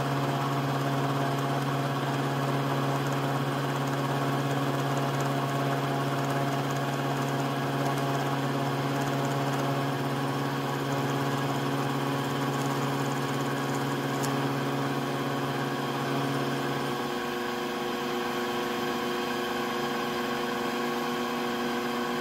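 Milling machine running, its cutter milling along the edge of steel plate clamped in a vise: a steady mechanical hum made of several held tones. The lowest hum drops out about three-quarters of the way through while the rest runs on.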